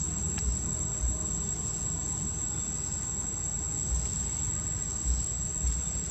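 Steady high-pitched insect drone over a low rumble, with a few dull low thumps.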